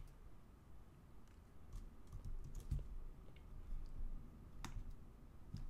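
Computer keyboard keys tapped a few times, faint and scattered, with one sharper click a little before the end.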